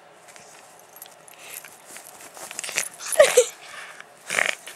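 Small puppy making soft noises while squirming against a hoodie: rustling and light clicks, with a short whine about three seconds in.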